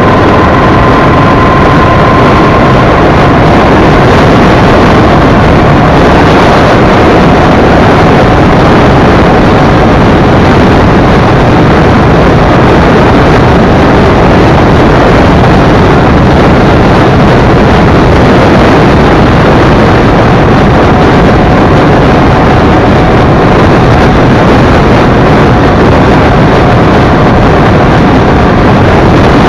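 Honda Shadow V-twin motorcycle on the move, heard from a camera mounted low by the front wheel: a loud, steady rush of wind and road noise on the microphone with the engine running underneath.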